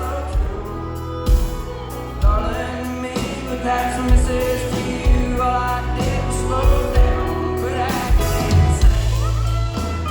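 Country music played by a band, with singing over bass and a steady drum beat; a few sliding notes ring out near the end.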